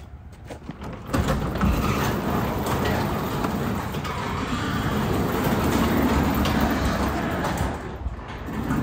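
Sectional garage door being pushed up by hand, rolling along its tracks with a steady rumble that starts about a second in and dies down near the end.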